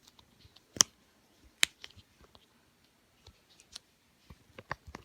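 Triple dimple fidget toy handled and pressed: scattered sharp plastic clicks, the two loudest about a second and a second and a half in, with fainter clicks and handling noise after.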